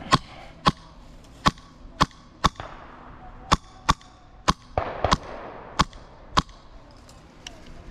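Airsoft guns firing single shots: about eleven sharp cracks at uneven intervals.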